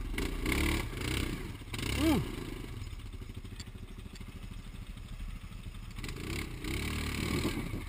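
Single-cylinder four-stroke ATV engine running at low trail speed, with the machine clattering and knocking as it rolls over roots and rocks.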